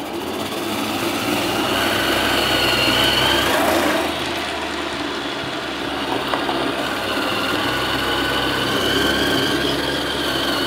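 Electric kitchen machine running its high-speed slicer attachment, a steady motor whir as raw beetroot, carrot and apple are pushed through and shredded into thin julienne. The sound eases briefly about four seconds in, as the next vegetable goes down the feed tube, then the whir carries on.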